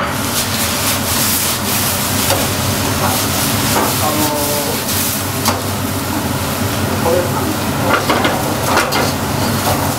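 Meat and vegetable stir-fry sizzling in woks over gas burners as it is tossed, with frequent clicks and scrapes of chopsticks and metal spatulas against the pans.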